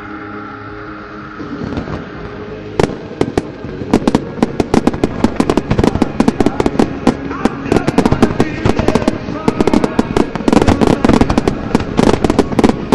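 Fireworks going off: one sharp bang about three seconds in, then a dense, rapid barrage of bangs and crackle that grows more intense toward the end, as the show music fades out at the start.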